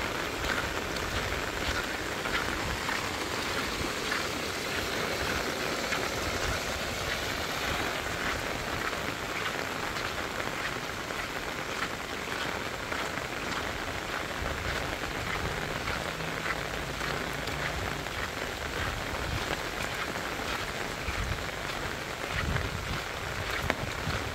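Steady heavy rain falling on a wet paved road and the grass and trees beside it, a dense, even patter of drops.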